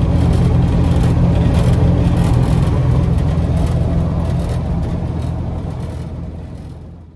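Cabin sound of a 1970 Plymouth 'Cuda cruising at motorway speed: a steady low engine drone with road and wind noise. It fades away over the last two seconds or so.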